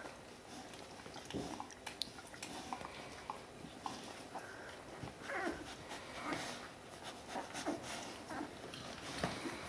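One-week-old Border Collie puppies nursing, giving a few short, high squeaks and whimpers, mostly in the second half, among soft clicks and shuffling.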